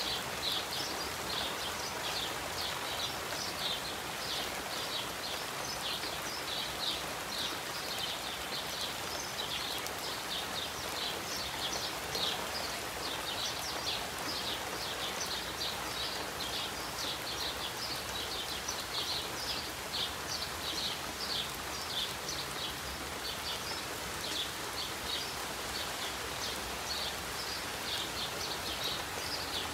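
Steady rain falling, with small birds chirping over it in quick high chirps, several a second, without a break.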